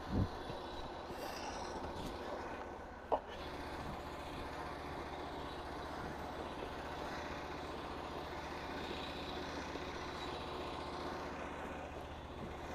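An engine idling steadily with a constant low hum, and a single sharp click about three seconds in.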